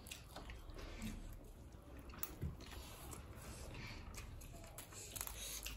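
Faint eating sounds: wet chewing and biting, with scattered small clicks and taps of spoons against plates.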